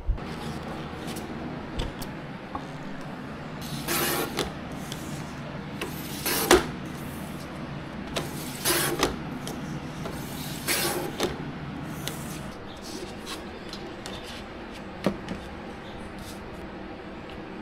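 Paper or sign stock being cut on a sliding paper trimmer: four short swishing cuts about two seconds apart, one ending in a sharp click, over a steady low hum that stops about two-thirds of the way through.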